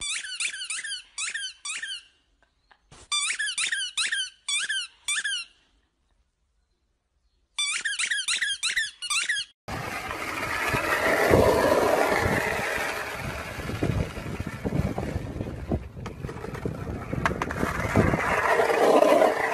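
Dog chewing a squeaky toy ball, making three runs of quick, high squeaks with short silences between them. About ten seconds in, this gives way to a skateboard rolling over asphalt: a steady rumble that swells and fades.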